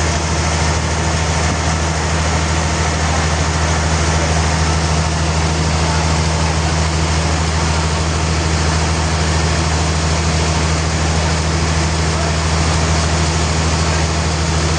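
Sawmill machinery running steadily: a constant low hum under an even hiss, with no change in load.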